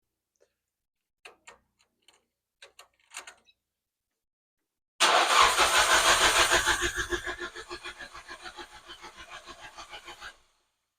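A few light clicks, then the Nissan Silvia S15's starter cranking the engine in quick even pulses for about five seconds without it catching, the cranking fading before it stops. This is the no-start that set in after the idle air control valve was cleaned.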